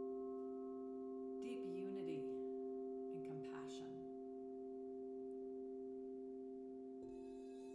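Crystal singing bowls ringing with several steady, sustained pure tones after being struck with a mallet. A fresh strike about seven seconds in adds a higher tone.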